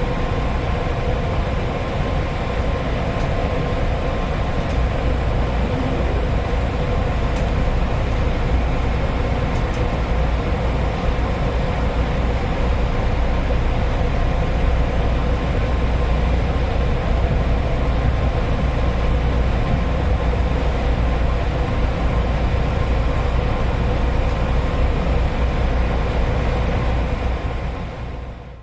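Steady low rumble of a train, heard from inside the car, with a faint even hum over it; it fades out near the end.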